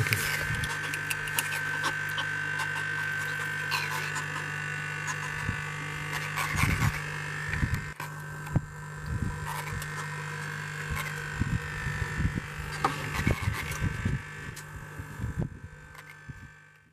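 Doradid (thorny) catfish stridulating with its pectoral fin spines: clusters of short grating croaks every couple of seconds, over a steady hum.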